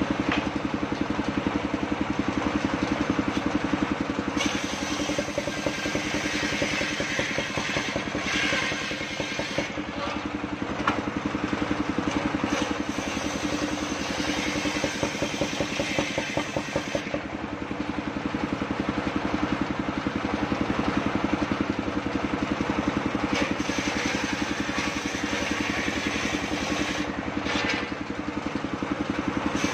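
Engine-driven circular saw on a mobile sawmill running steadily while its large blade rips lengthwise through a log. The cutting adds a harsher, higher hiss over the engine for two long stretches, easing off for a few seconds between them.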